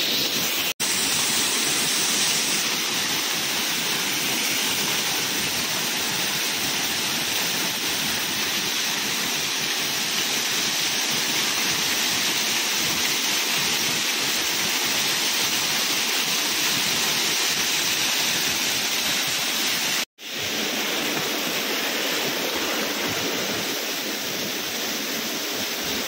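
Small waterfall splashing down over rock, a steady even rush of falling water, broken by two brief silent gaps, about a second in and about twenty seconds in.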